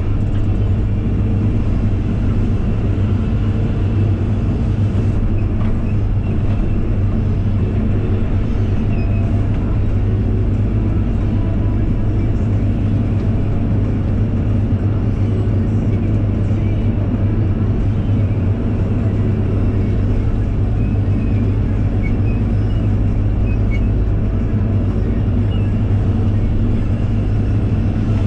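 JCB JS160W wheeled excavator's diesel engine running steadily under working load, a low, even drone heard from inside the cab while the boom and bucket dig a trench.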